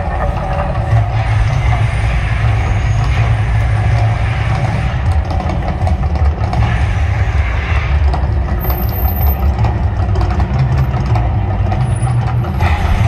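The Mirage volcano show erupting: a loud, deep, continuous rumble with a rushing hiss over it.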